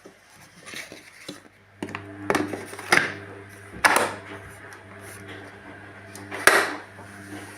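Hard plastic clicks and knocks from a vacuum cleaner's parts being handled, several spaced a second or more apart. Under them a faint steady low hum begins about two seconds in.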